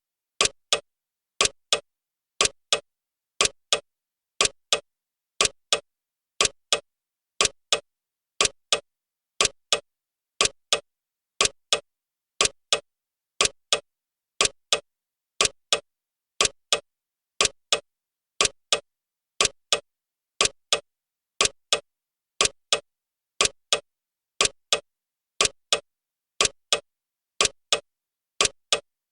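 Clock ticking steadily in a tick-tock rhythm: two sharp clicks close together, repeating about once a second.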